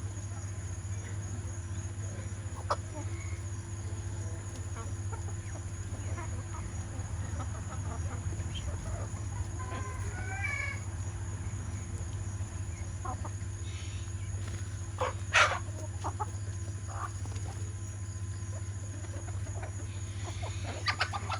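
Chickens clucking, with one wavering call about ten seconds in, over a steady low hum. A single sharp knock about fifteen seconds in is the loudest sound.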